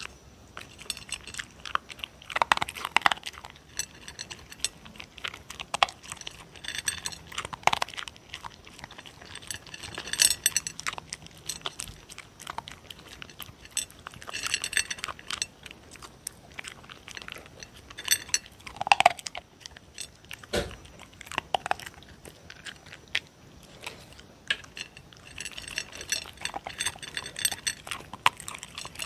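A dog crunching and chewing dry kibble from a plate close to a microphone, in many irregular crisp crunches.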